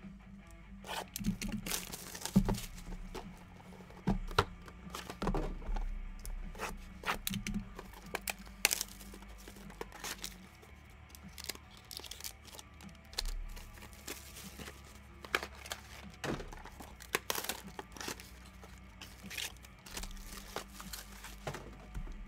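Shrink-wrap plastic being torn and crinkled off sealed trading-card boxes, with irregular crackles and rips throughout.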